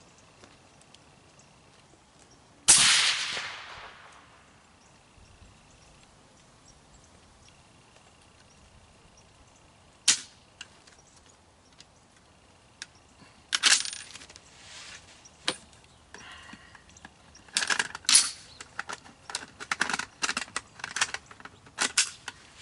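One shot from a suppressed 7.62x51 NATO XM25 sniper rifle about three seconds in, a sharp crack with a short echoing tail. Later come scattered metallic clicks and clatter, turning into a busy run of them in the last five seconds.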